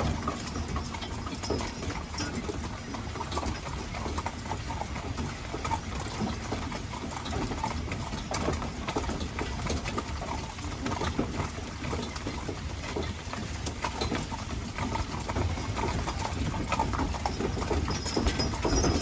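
Hoofbeats of a pair of Haflinger horses pulling a wagon, an uneven run of clip-clops over a steady low rumble.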